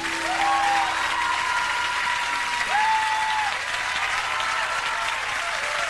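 Large concert audience applauding and cheering after a song ends, with long, high whoops rising above the clapping.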